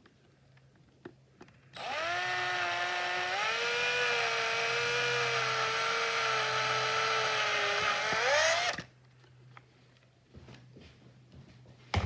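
Handheld power drill running for about seven seconds. The motor whine steps up in pitch about a second after it starts, holds steady, then climbs briefly just before it stops. A single sharp knock comes near the end.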